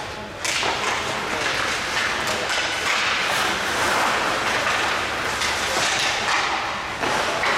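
Ice hockey play heard from rinkside: skate blades scraping the ice, a steady hiss, with scattered sharp clacks and thuds of sticks, puck and bodies against the boards.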